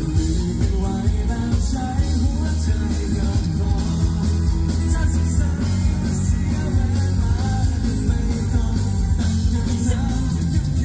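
A rock band playing loud and without a break, with a singer's voice over a heavy bass and drums.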